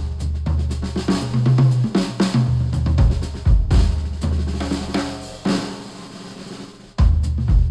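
Instrumental music with a drum kit and bass line, played through HIFIMAN Sundara open-back planar headphones and picked up by microphones at the earcups. The beat and bass drop away about five and a half seconds in and the full kit comes back in near the end.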